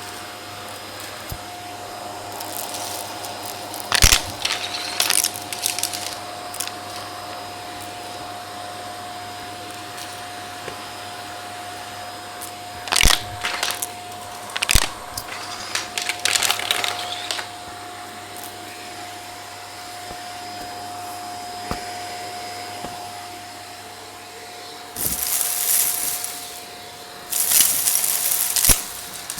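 Vacuum cleaner running with a steady hum, its brush attachment sucking up grit and debris in several bursts of crackling and rattling, the longest near the end.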